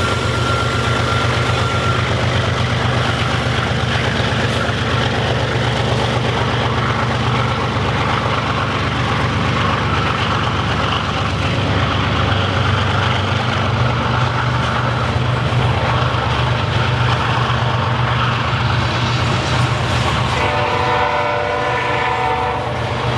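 BNSF diesel-hauled freight train passing close by: the rear locomotive goes by at the start, then a string of coal hopper cars rolls past with a steady rumble and wheel clatter on the rails. A train horn sounds briefly near the end.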